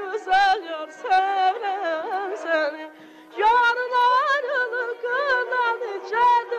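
Azerbaijani folk song: a solo singer's ornamented, trilling melody over a steady held accompaniment tone, with a brief pause about three seconds in.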